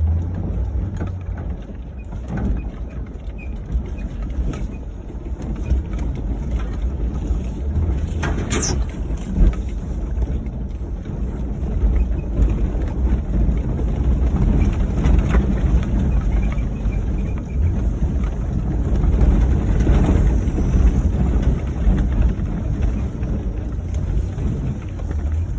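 Ford Crown Victoria driving over rough dirt: a steady low rumble with scattered sharp knocks and rattles, the loudest about eight and a half seconds in.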